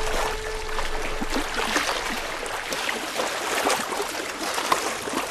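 Sea water splashing and sloshing around a man in the water and his log raft as he wades and heaves at it, with small irregular splashes throughout.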